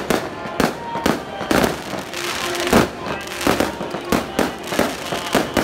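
Firecrackers going off in sharp, irregular bangs, several a second at times, as a Mazu procession passes, with a few held musical tones beneath them.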